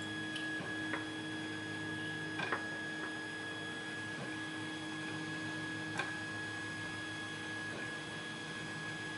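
Steady electrical hum with a thin high whine under it. A few light, sharp clicks, about one, two and a half and six seconds in, from small padlock parts and pins being handled.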